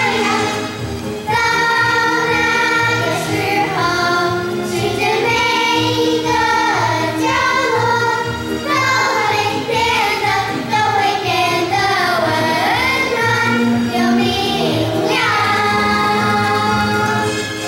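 Children's choir of young girls singing a song in unison into stage microphones, over a steady musical accompaniment, with a short break between phrases about a second in.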